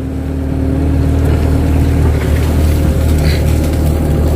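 Kato crawler excavator's diesel engine running steadily at working speed, a low even hum that swells a little over the first second.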